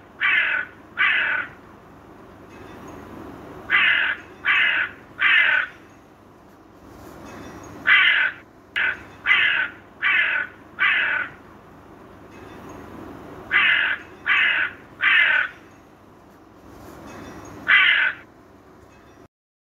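Crow cawing in runs of two to five caws, each about two thirds of a second apart, with pauses of two to three seconds between runs. A faint low background rumble lies under the calls.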